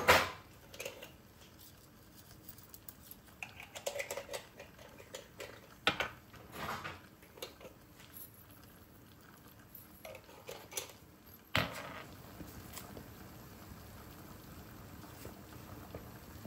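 Kitchen clatter of utensils against cooking pots: scattered light taps and clicks, with a sharper knock about six seconds in and another near twelve seconds, after which a faint steady hiss carries on.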